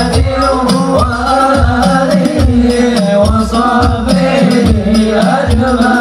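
Devotional singing accompanied by hand drums in a steady rhythm, with jingling percussion.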